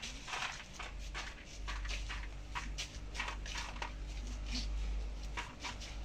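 Budgerigars chirping and chattering in short, irregular calls, over a low rumble.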